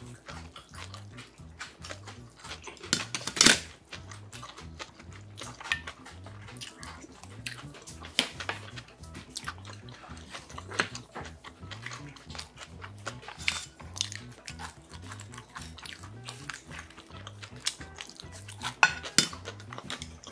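Stainless steel chopsticks and a spoon clinking against metal bowls and a metal tray, in scattered sharp clinks with one louder clatter a little over three seconds in, over soft background music with a steady low beat.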